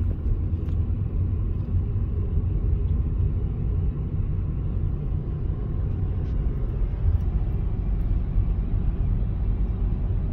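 Steady low rumble of a vehicle driving along a road, heard as a constant road and engine drone.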